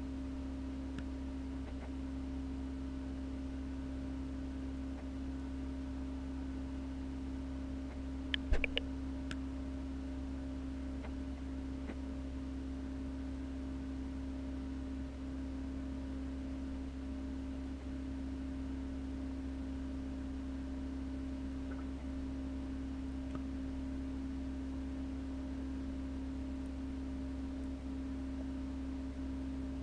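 Steady electrical hum of aquarium equipment such as a pump: one unchanging tone over a low drone. A brief cluster of clicks about eight seconds in.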